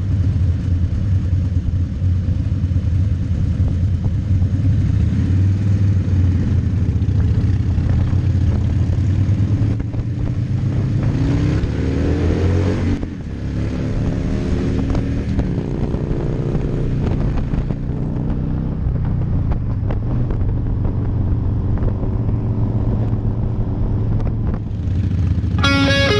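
Harley-Davidson Fat Boy's air-cooled V-twin engine running steadily under way. About halfway through it accelerates, its pitch climbing, briefly drops back at a gear change, then climbs again before settling to a steady cruise.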